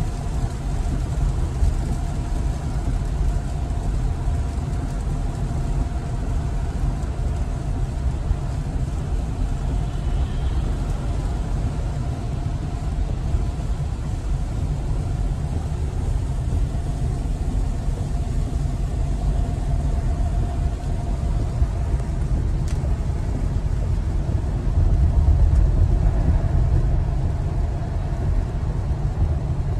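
Steady low rumble of road and tyre noise heard inside the cabin of an electric Tesla Model Y at highway speed on a wet road. It swells louder for a couple of seconds near the end.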